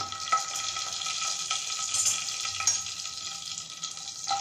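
Mustard seeds, cumin and fenugreek crackling and sizzling in hot oil, with dried Byadgi chillies just added and frying: an Indian tempering (tadka). The crackling is steady, with a few sharper pops and clicks.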